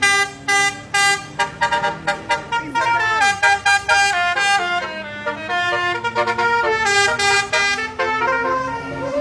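Telolet horn on an Indonesian bus: a set of musical air horns playing a fast tune of short stepped notes, several pitches sounding together.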